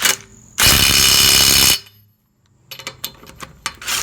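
DeWalt DCF902 12-volt Xtreme 3/8-inch impact wrench, set to wrench mode, hammering in one burst of about a second as it tightens a car lug nut. A few sharp clicks and knocks follow.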